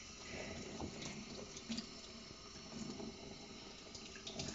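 Tap water running steadily into a stainless steel kitchen sink, with faint splashing around a wet puppy being bathed.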